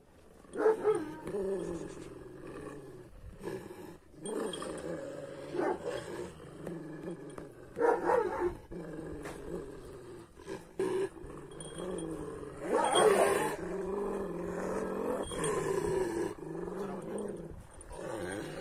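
Kangal shepherd dogs growling at each other, low and nearly without a break. There are louder snarling outbursts about a second in, around eight seconds and around thirteen seconds.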